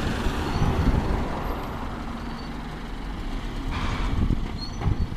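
Alexander Dennis Enviro200 single-deck bus running as it pulls away, with a low engine rumble and a short hiss of air about four seconds in.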